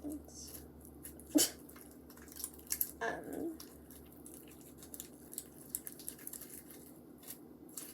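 Wet, sticky homemade slime being squeezed and worked in the hands after water was added to stiff, rubbery slime, giving scattered squelches and small clicks. A sharp click a little over a second in is the loudest sound.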